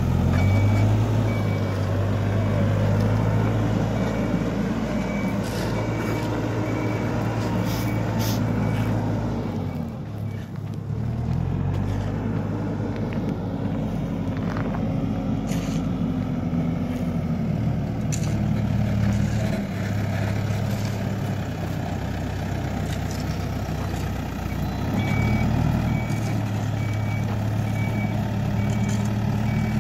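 Hidromek backhoe loader's diesel engine working, its revs rising and falling with the load. A reversing alarm beeps in even pulses for the first third and again near the end.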